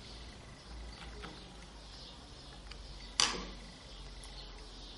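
Faint small clicks and handling noise of a screwdriver backing a small screw out of a tape binder's plastic head, with one sharp click a little over three seconds in, over a low steady hum.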